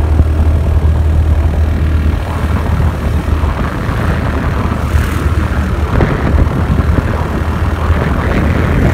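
Motorbike engine running steadily on the move, a constant low hum under road and wind noise.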